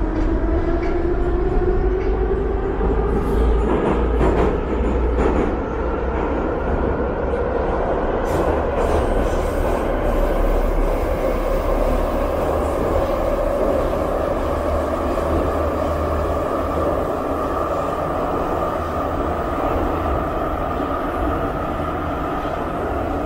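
Inside a metro train carriage pulling out of a station: the traction motors whine, rising steadily in pitch as the train accelerates, then level off at cruising speed about halfway through. Under the whine runs a constant rumble of wheels on rail. A few sharp clacks come about three to five seconds in and again around eight seconds.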